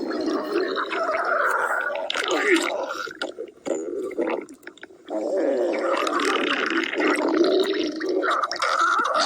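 Cartoon stomach-growling sound effect, a hungry stomach: loud, wobbling gurgles that drop away a little past three seconds in and start up again about five seconds in.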